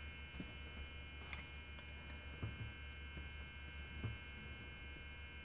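Steady low electrical hum in a quiet room, with a few faint, scattered clicks from small lock parts being handled.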